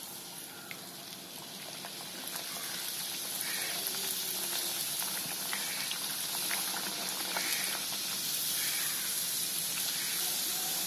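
A poori deep-frying in hot oil in a kadai: a steady sizzle that grows louder over the first few seconds as the dough goes in. A few light clicks come from a steel slotted spoon pressing the poori down in the oil.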